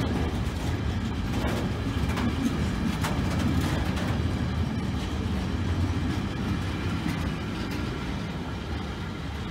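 Freight train wagons rolling past at speed: a steady rumble of wheels on the rails with scattered sharp clicks, easing off slightly near the end as the last wagons approach.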